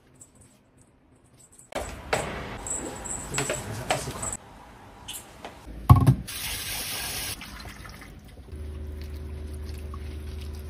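Kitchen tap running water into a glass bowl of strawberries at a sink, with handling clatter and one loud dull thump about six seconds in.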